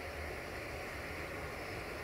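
Steady, distant rumble of a 060-DA (LDE2100) diesel-electric locomotive's Sulzer engine running as it draws a passenger train slowly along.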